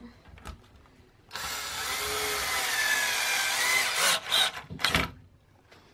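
Power drill driving a screw into a wooden board: one long run of about three seconds starting just over a second in, then two or three short spurts of the drill.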